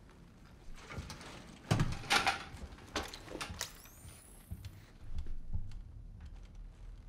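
Sparse sound effects of scattered clicks, knocks and rustling scrapes, loudest about two seconds in, with a short high squeaking glide about four seconds in.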